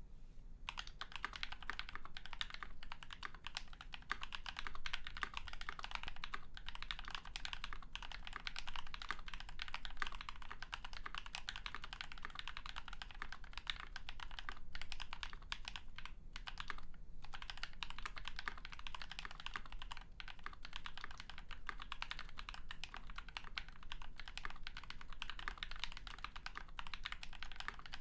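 Steady, fast typing on a KBD67 MKII mechanical keyboard: a polycarbonate case with an FR4 plate and foam dampening, lubed NovelKeys Cream linear switches and GMK keycaps. The key strokes start about half a second in, with a couple of short pauses.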